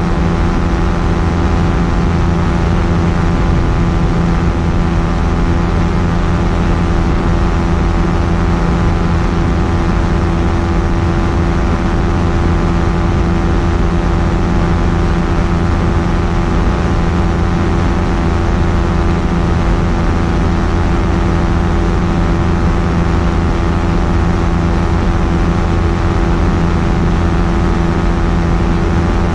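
Quicksilver Sport 2S ultralight aircraft's engine and propeller running at a steady, unchanging speed, a loud even hum of many tones over a low rumble.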